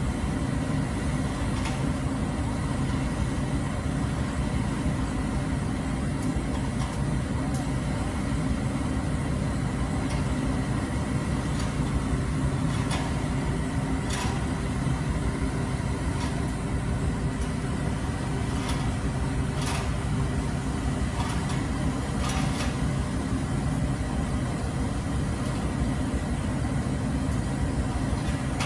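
Engine of the truck-mounted crane running steadily while it lifts a load of drywall, with a few faint clicks and knocks.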